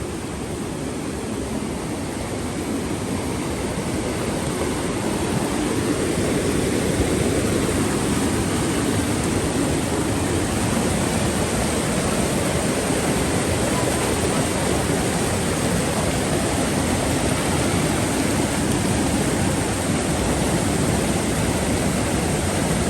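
Flooded river rushing, a steady wash of water noise that grows a little louder over the first several seconds and then holds steady.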